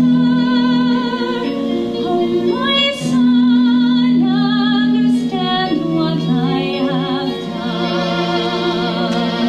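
A woman singing a musical-theatre song in long held notes with wide vibrato, over sustained instrumental accompaniment.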